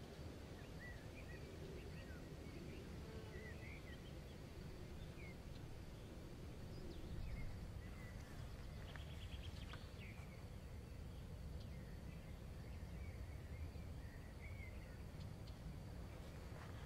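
Quiet outdoor ambience with birds chirping now and then over a low steady rumble, and a faint steady high-pitched tone.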